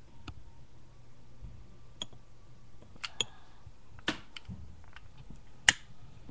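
A series of sharp, short clicks and snaps, about seven in all and irregularly spaced, the loudest near the end, over a faint low hum.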